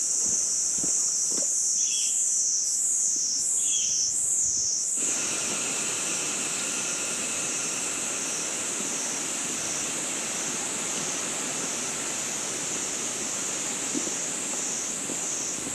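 Rainforest ambience dominated by a loud, high-pitched insect chorus that wavers in a steady pulse about twice a second. Two short calls sound near 2 and 4 seconds in, and about 5 seconds in a lower hiss joins the chorus.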